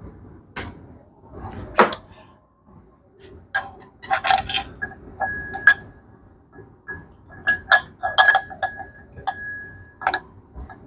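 Metal tools and steel engine parts clinking against each other: sharp clinks in two clusters, several leaving a short ringing note.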